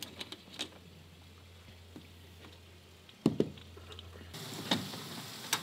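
Short sharp metallic clicks from pliers gripping and pulling on cable-rail wire at a railing post. The pliers are taking the slack out of the cables before final tensioning. A few quick ticks come at the start, and a louder snap comes a little over three seconds in.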